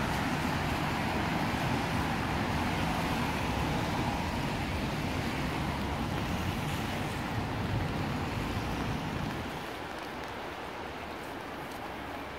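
Road traffic on a wet road: a steady hiss of tyres and engines going past, which eases off about nine and a half seconds in.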